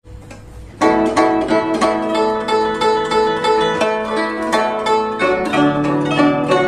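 Guzheng (Chinese zither) played solo: quick plucked notes, about four a second, some with bent pitches, starting a little under a second in after a quieter lead-in.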